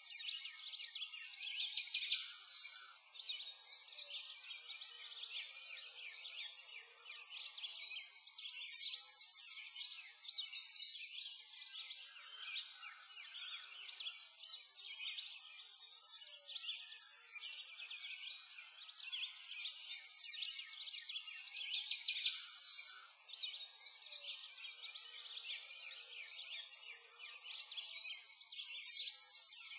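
Many songbirds chirping and singing together in a continuous high-pitched chorus with no low sounds, swelling and easing every few seconds.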